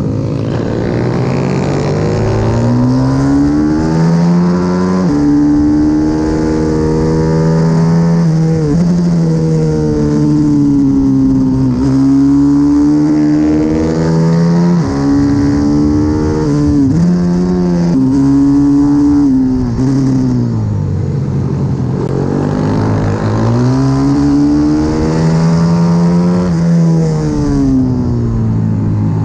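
Onboard sound of a 140cc pit bike engine at racing speed, its pitch climbing in steps as it changes up through the gears, then falling away into each corner, several times over.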